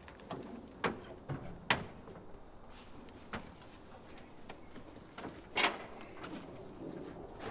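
Scattered knocks and clunks of a person climbing onto a pickup's dropped tailgate and into its bed while handling gear. The loudest, a longer clunk, comes about five and a half seconds in.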